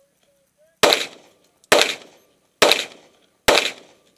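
Competition pistol fired four times at an even pace, just under a second apart, each shot a sharp crack with a short echo trailing off.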